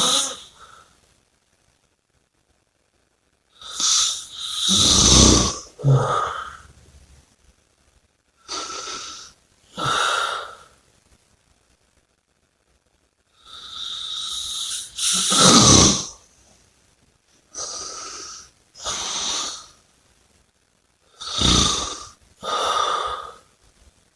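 A person snoring and breathing heavily in sleep: about five breath cycles, each a pair of noisy breaths a second or so long, some with a deep snoring rattle, separated by silent pauses of two to three seconds.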